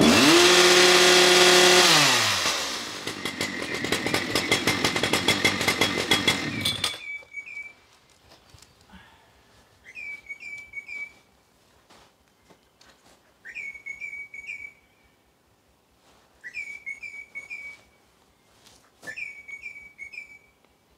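Petrol chainsaw held at full revs for about two seconds, then dropping back to a lower speed and running for a few seconds before it cuts out suddenly. Afterwards a bird gives short whistled calls, repeated every few seconds.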